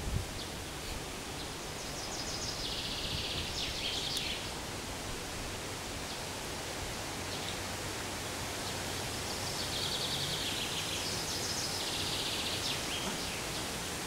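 A small songbird singing two short, rapid trilled phrases, each about two seconds long and several seconds apart, over a steady outdoor hiss.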